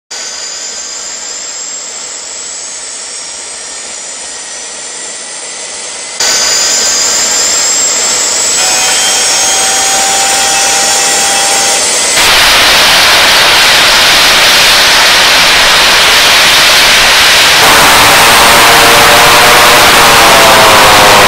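DC-3's turboprop engine starting up: a high turbine whine rising steadily in pitch and growing louder in steps. A lower wavering drone joins near the end.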